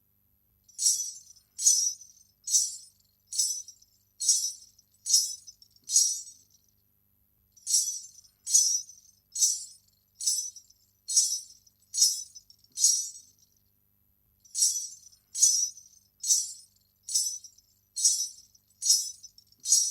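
Salangai (ghungroo) ankle bells shaken in a steady beat, a short jingle a little more than once a second. The jingles come in three runs of seven, with a pause of about a second between runs.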